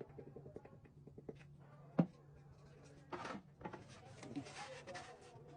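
Wooden cabinet-door parts being handled and fitted: small taps, one sharp knock about two seconds in, then rubbing and sliding of wood on wood, over a low steady hum.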